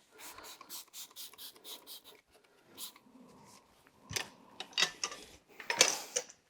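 Hand work on a manual motorcycle tire changer while a stiff tire is worked off a spoked rim: a quick run of short rubbing or scraping strokes, then a few sharp knocks, the loudest near the end.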